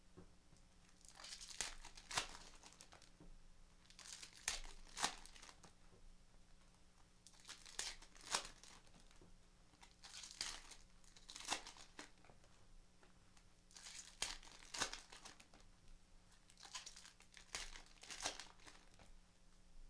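Bowman Platinum baseball card pack wrappers being torn open and crumpled, in short crinkling bursts every second or two.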